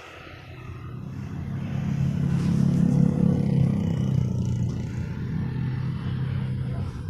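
A motor vehicle engine passing close by, growing louder to a peak about three seconds in and then slowly fading.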